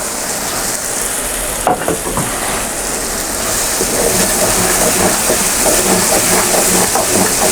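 Tomato paste frying in hot oil with onion and ground spices in a pan, a steady hissing sizzle that slowly grows louder.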